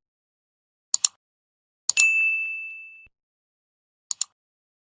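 Subscribe-button animation sound effects: a double mouse click about a second in, then another click and a bell ding that rings out and fades over about a second, and a second double click near the end.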